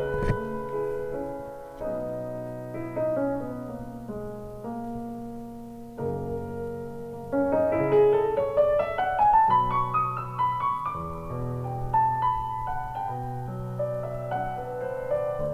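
Solo piano music played back through Yamaha NS1000 loudspeakers, with a quick run of notes climbing in pitch about halfway through.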